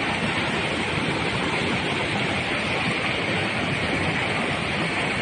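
Fast-flowing floodwater rushing, a steady dense noise without pauses.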